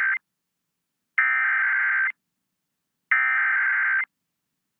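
Emergency Alert System SAME header: bursts of digital data tones, each about a second long with a second of silence between. The end of one burst is followed by two full bursts. This is the coded header that opens an EAS alert, here a tornado warning.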